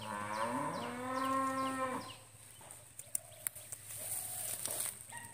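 A cow mooing once, a long call of about two seconds that rises at its start and then holds steady. A short, high, falling chirp repeats a few times a second throughout.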